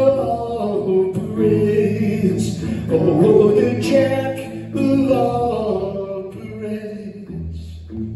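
Live band music with a man singing long, drawn-out notes over strummed acoustic guitar and drums. The singing thins out near the end as the song winds down.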